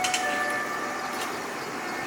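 Street traffic and tram noise at a level crossing, with a few thin ringing tones for about the first second.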